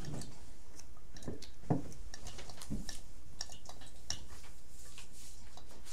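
Room tone with a steady low hum and scattered small clicks and knocks, the most distinct about a second and a half in and near three seconds in.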